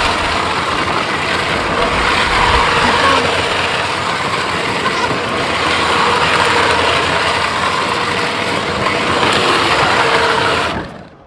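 Plastic wheels of a 24-volt-upgraded Power Wheels ride-on car scrubbing on pavement as it spins donuts, with its electric drive motors running: a loud, steady grinding noise that cuts off suddenly near the end.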